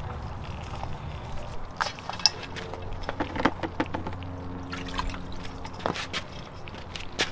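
Live crawfish clicking and scraping against a stainless steel bowl in many short, scattered clicks, over a steady trickle of running water.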